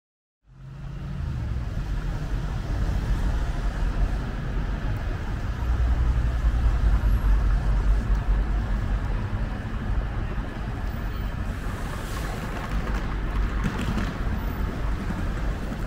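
Outdoor city street ambience starting about half a second in: a steady traffic rumble with wind buffeting the microphone.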